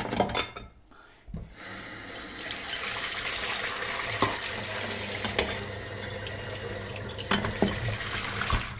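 A few sharp knocks, then a kitchen tap is turned on and runs steadily into the sink, with an occasional small clink.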